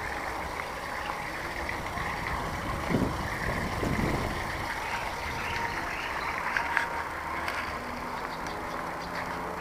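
Steady rumble and hiss of a camera travelling on a moving vehicle along a paved lane, with two low thumps about three and four seconds in and a few light rattling clicks later.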